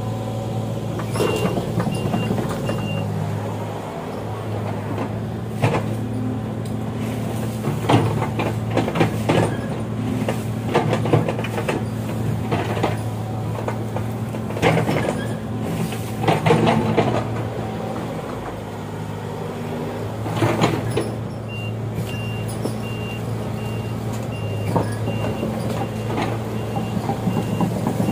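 Heavy diesel machinery, such as an excavator, running steadily with repeated metallic clanks and knocks, and a high warning alarm beeping about twice a second for a couple of seconds at the start and again over the last several seconds.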